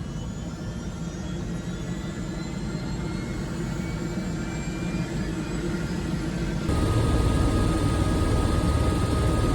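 Helicopter in flight: a steady noise of engine and rotor that gets louder about two-thirds of the way in, where a thin steady whine joins it.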